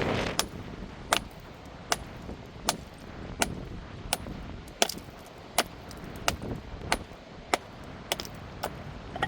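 A series of sharp knocks or strikes at an even pace, about one every three quarters of a second.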